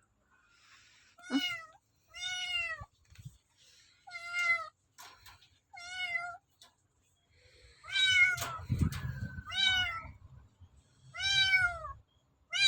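Kitten meowing again and again: about eight short, high-pitched, arching mews with gaps between them. A single knock with some rustling comes about two-thirds of the way through.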